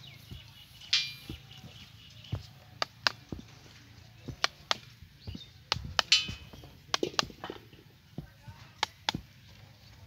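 A mason's trowel scraping and tapping on a wet sand bed as it is smoothed level. The strokes are irregular, with two louder scrapes, one about a second in and one about six seconds in.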